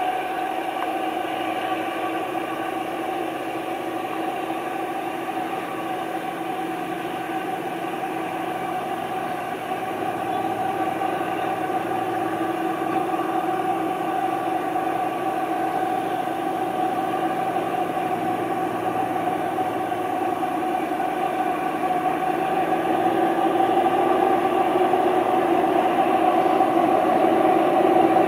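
ZDM-3 narrow-gauge diesel locomotive's engine running steadily with a pitched hum as the train moves slowly, growing gradually louder over the second half.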